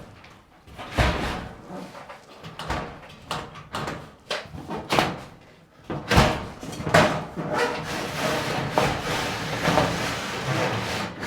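Thin steel ceiling panel banging and rattling as it is forced up into J-channel: a string of irregular knocks, then a longer stretch of continuous metallic clatter in the second half.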